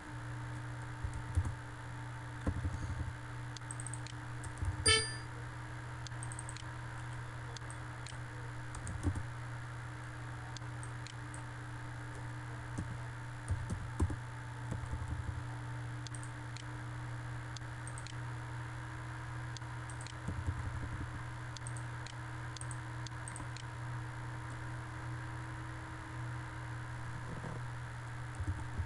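Scattered computer keyboard and mouse clicks as dimension values are typed in, over a steady low electrical-sounding hum. A brief ringing tone sounds once about five seconds in.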